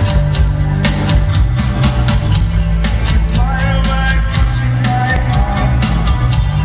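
Rock band playing live in an arena, heard from the audience: a steady drum beat over heavy bass, with guitar lines weaving above.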